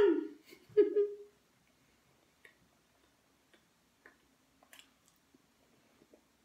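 Quiet eating sounds: a brief vocal sound about a second in, then faint scattered clicks of a fork and mouth as a forkful of pancake is taken and chewed.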